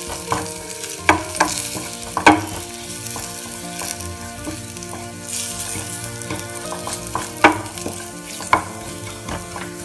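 A tadka of green chillies, coriander powder and ground cumin and black pepper sizzling in hot oil in a steel frying pan while it browns. A wooden spatula stirs it, with a few sharp scrapes against the pan.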